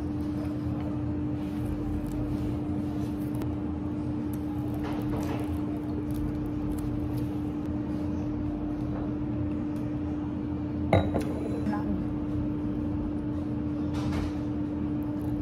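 Restaurant table ambience: low background chatter under a steady hum, with occasional clinks of cutlery and glass, the sharpest about 11 seconds in.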